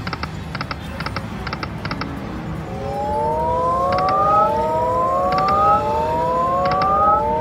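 Aristocrat Timber Wolf slot machine spinning a free game: a run of quick electronic double ticks about every half second as the reels land. Then a series of overlapping rising electronic tones, a new one starting about every second and a half over the casino background.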